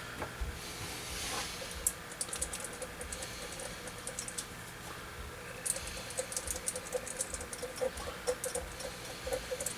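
Soldering iron working old solder off a transistor's leads on a circuit board: two runs of light, rapid crackling clicks as the flux and solder heat.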